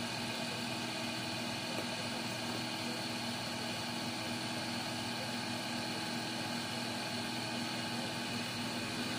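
Steady hum of workshop machinery running: an electric motor with several constant tones over an even hiss, unchanging throughout.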